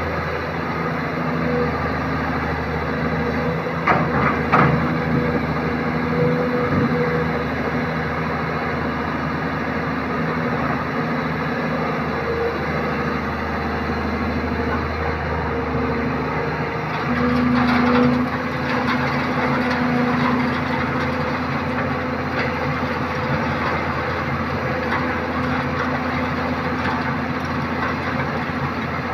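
Kobelco SK200 hydraulic excavator's diesel engine running steadily while it digs and loads sand, with a few short knocks about four seconds in. The engine grows louder for a few seconds just past the middle.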